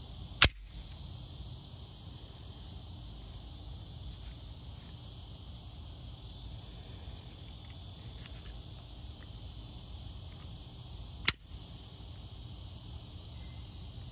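Steady, high insect chorus. Two sharp clicks, the loudest sounds, cut through it: one just after the start and one about eleven seconds in.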